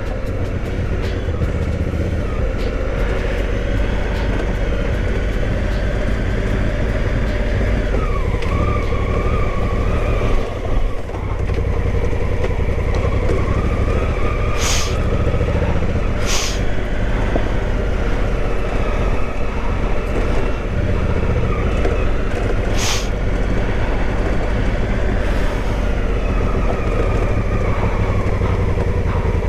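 Honda Africa Twin's parallel-twin engine running on a dirt trail, its revs dropping and rising again about a third of the way through, with three short sharp ticks in the second half.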